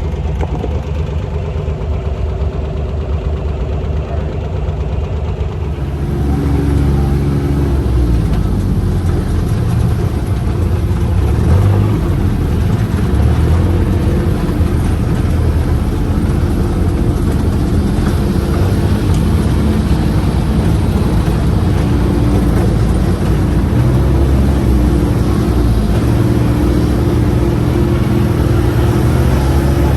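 UTV side-by-side engine running as the vehicle drives along, with a steady low engine note that grows louder about six seconds in.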